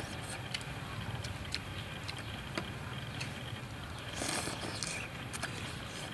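Eating sounds as two people taste soup from metal spoons: scattered small clicks and smacks, with a short slurp about four seconds in, over a low steady hum.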